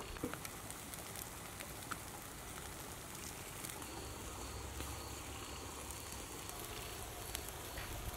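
Charcoal fire under a whole fish on a wire grill, crackling with scattered sharp pops over a steady outdoor background hiss.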